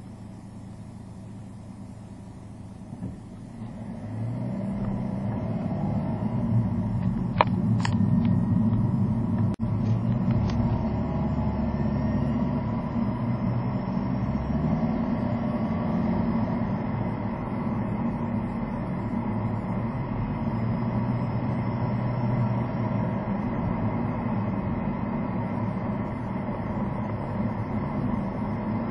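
Car engine and road noise heard from inside the cabin. The car is quiet at first, then the engine revs up about four seconds in as it pulls away. It settles into a steady running drone at cruising speed.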